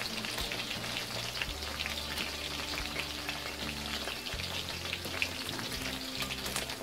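Chicken wings deep-frying in a steel wok of hot oil: a steady crackling sizzle of many small pops, the wings browned and almost cooked through. A spatula stirs and turns them in the oil now and then.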